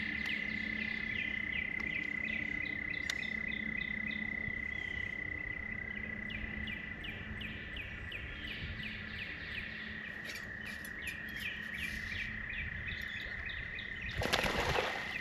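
Rapid, even chirping of wild creatures, about four chirps a second over a steady high-pitched whine. Near the end there is a short, loud rush of noise.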